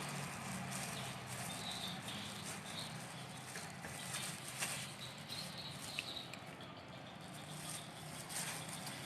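Quiet kitchen handling noises as bread slices are filled with spoonfuls of vegetable filling: a few light clicks and taps, one about halfway through and another about two-thirds of the way in, over steady background hiss.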